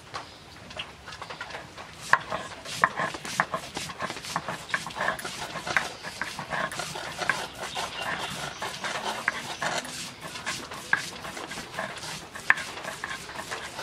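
Soaked lentils being ground on a flat grinding board with a hand-held roller: rhythmic rubbing and scraping strokes with frequent sharp clicks and knocks, starting about two seconds in.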